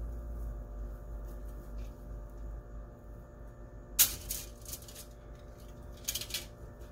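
Aluminium foil crinkling as crescent roll dough is peeled and lifted off it: one sharp crinkle about four seconds in, the loudest sound, and a few shorter crinkles near the end, over a steady low hum.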